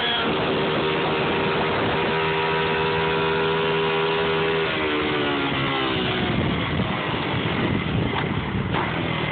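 Small 50cc motorbike engine running at steady high revs, then the pitch falls away about halfway through as the throttle is eased off, leaving a rougher, uneven engine sound with road and wind noise.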